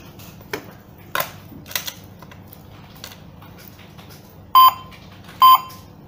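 KERUI KR-X1 alarm control panel's keypad beeping twice, about a second apart, with short steady tones as its keys are pressed. Before that come a few light clicks.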